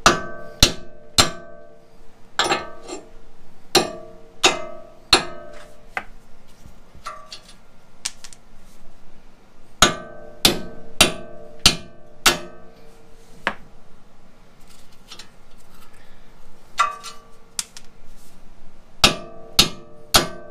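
A 4-pound hand sledge striking the ends of the pressed-in wheel studs on a Toyota truck's front hub, knocking them out of their splines. Sharp metal-on-metal blows, each with a short ringing tone, come in runs of several strikes under a second apart, with short pauses between runs.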